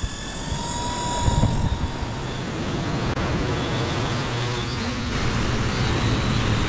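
A Cuta-Copter fishing drone's propellers buzzing as it flies out carrying a bait, over steady surf and wind noise.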